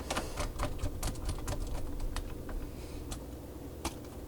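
Quick, irregular light clicks and taps of plastic laptop parts being handled and pressed together during reassembly, with one sharper click near the end.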